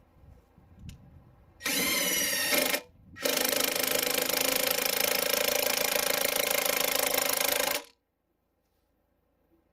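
Earthquake 20-volt cordless impact wrench hammering as it turns a scissor jack's screw to lift the car: a short burst, then after a brief pause a steady run of several seconds that stops abruptly.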